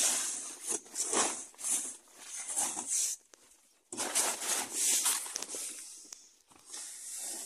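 Plastic tarpaulin rustling and crinkling in short irregular bursts. It pauses briefly a little after three seconds in, then starts again abruptly.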